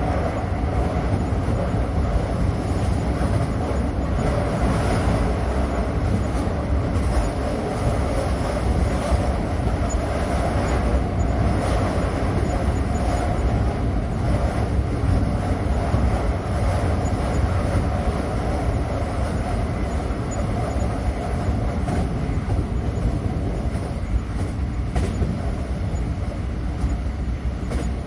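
A train running along the track: a steady rumble of wheels and carriages, with faint scattered ticks and no change in level.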